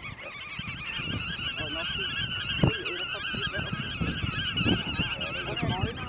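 A dense, steady chorus of many birds calling at once, their wavering nasal calls overlapping without a break. Low thumps of wind buffet the microphone.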